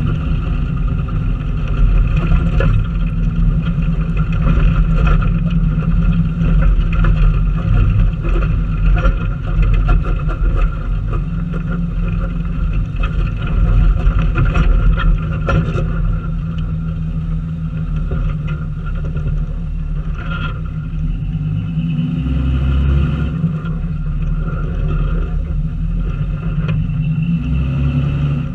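4x4 running and crawling over a rocky dirt trail: steady engine and heavy low rumble, with scattered knocks and clatters as the tyres roll over stones.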